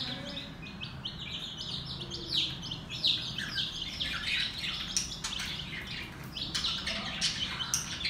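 Several days-old chicks peeping: a rapid, overlapping run of short high chirps, each falling in pitch, growing busier from about two seconds in.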